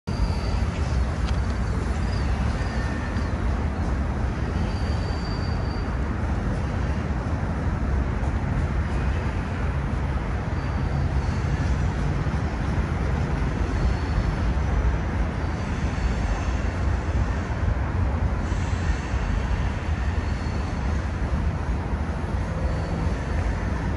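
Freight train cars rolling across an elevated rail bridge: a steady, continuous rumble.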